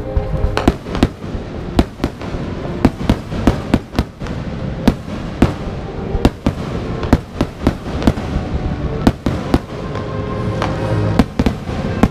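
Aerial firework shells bursting in an irregular, rapid series of sharp bangs, several a second at times, with music playing underneath.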